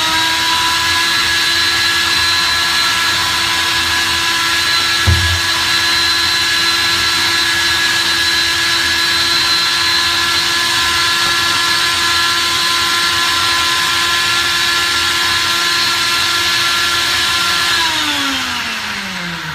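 High-speed countertop blender running steadily with a high motor whine, blending soaked cashews and liquid into a creamy purée. There is a brief knock about five seconds in. Near the end it is switched off and the whine falls in pitch as the motor spins down.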